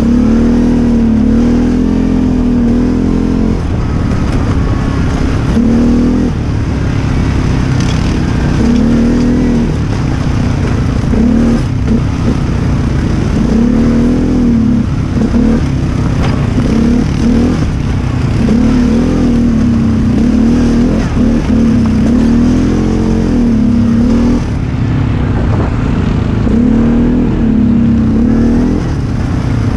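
A quad ATV's engine running under load on a rough dirt trail, its pitch repeatedly rising and falling as the throttle is opened and eased, over a steady low rumble.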